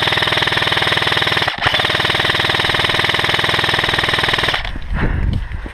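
Airsoft electric rifle firing full-auto in a long burst of rapid, even shots, with a short break about a second and a half in; the firing stops about four and a half seconds in. This is covering fire for a teammate making a run.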